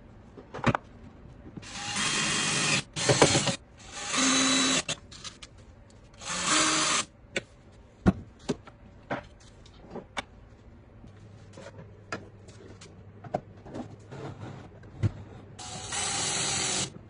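Cordless drill driving screws to fasten metal ball-bearing drawer slides, in four short runs of about a second each: about two seconds in, around four and six seconds, and near the end. Clicks and knocks from handling the slides and screws come between the runs.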